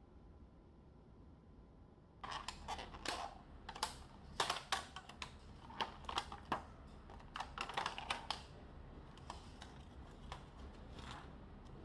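Typing on a computer keyboard: irregular key clicks start about two seconds in, come thick and fast until about eight seconds in, then thin out to a few lighter taps.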